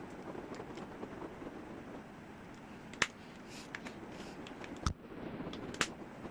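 Quiet room noise broken by a few sharp clicks or taps, the loudest about three seconds in, another near five seconds and one shortly before the end, with fainter ticks between.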